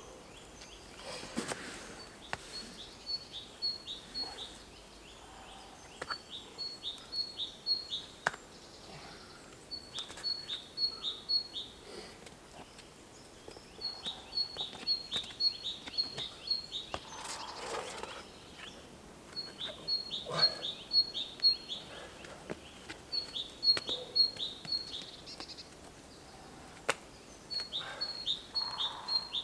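A songbird repeating a phrase of four to seven quick, identical high notes every few seconds. Occasional sharp knocks and scuffs from a climber's hands and shoes on the rock.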